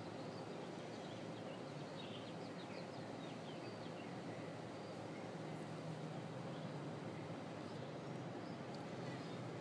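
Steady background noise with a few faint, short, high chirps in the first few seconds.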